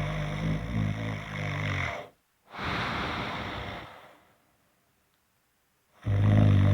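Snoring: a loud snore that breaks off about two seconds in, a breathy out-breath that fades away, a pause of about two seconds, then the next loud snore starting near the end.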